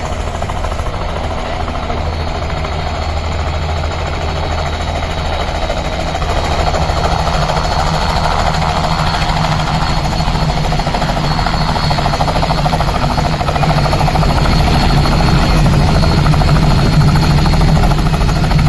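Light two-bladed helicopter's rotor and engine running as it comes in low to land, growing louder as it nears and settles onto the ground.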